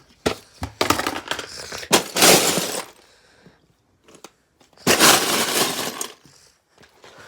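Three bursts of clattering and rustling, as of small hard objects being rummaged through during a search, with a few sharp clicks between them.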